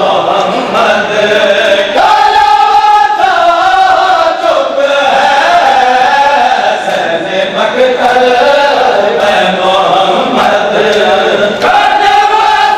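Male voices chanting a noha (Shia mourning lament) in a loud, continuous melody for matam. The tune steps between held notes every second or two.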